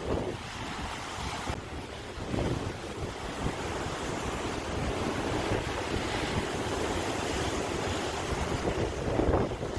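Sea waves washing onto the shore in a continuous surf, with wind buffeting the microphone; louder surges about two seconds in and again near the end.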